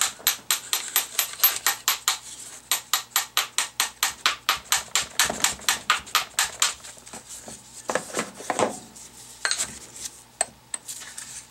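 Small hammer tapping rapidly and lightly, about five taps a second, to drive the pulley out of a Hydro-Gear hydrostatic pump. The tapping stops about seven seconds in, and a few scattered knocks and clinks follow.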